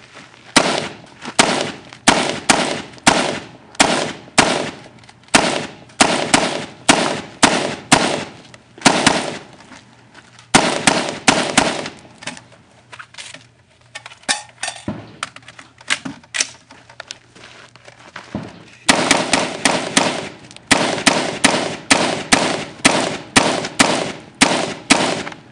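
Rifle shots fired in rapid strings, about two a second, with a lull of several seconds about halfway through before the firing picks up again.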